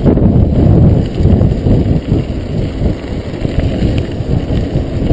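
Mountain bike ridden fast on a gravel forest road, heard from a camera on the bike: a loud, continuous low rumble of wind buffeting the microphone and tyres rolling over gravel.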